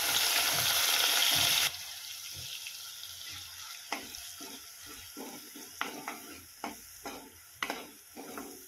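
Wet ground masala paste sizzling loudly as it hits hot oil in a kadhai, the hiss dropping suddenly about two seconds in. It then fries more quietly while a spoon stirs and scrapes it around the pan in irregular strokes: the paste being fried down in the tempering.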